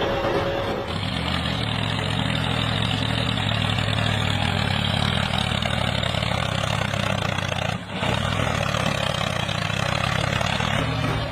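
A truck engine running steadily at a low, even pitch, briefly dropping out about eight seconds in.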